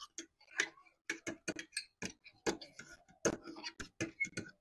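Metal forks tapping and clinking against ceramic plates and peeled boiled eggs: a run of short, sharp clicks at an uneven pace of about four or five a second.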